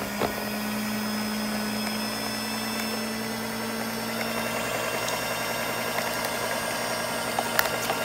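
Small electric stand mixer running steadily, its two beaters whipping fresh cream with sugar. There are a couple of light clicks near the end.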